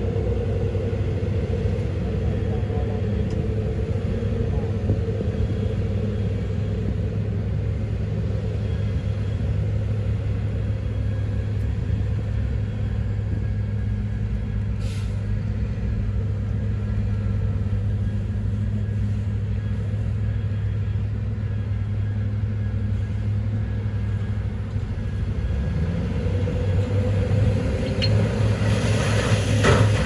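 Heavy diesel engine of a wheel loader running steadily with a low rumble, then revving up and growing louder over the last few seconds as it pushes stone.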